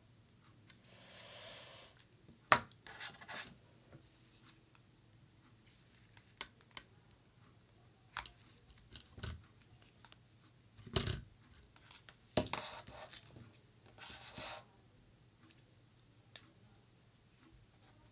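Scattered clicks, taps and short rustles as craft tools and materials are handled and set down on a glass-topped worktable, among them a hot glue gun and a bamboo stick. Two sharp clicks, about two and a half seconds in and near the end, are the loudest.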